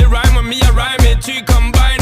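Music: a song with a heavy bass beat, about four beats a second, and a vocal line over it.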